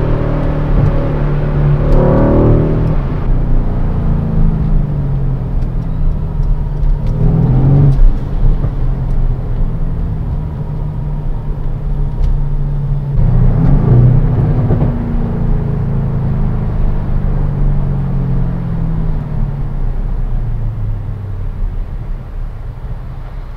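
The Mercedes-AMG C63 S Estate's 4.0-litre V8 running under way. Its note rises three times as the car accelerates, about two seconds in, near eight seconds and again around the middle, and each time it sinks slowly over several seconds as the revs fall.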